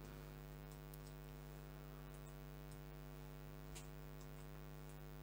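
Faint, steady electrical hum with a few soft computer-mouse clicks.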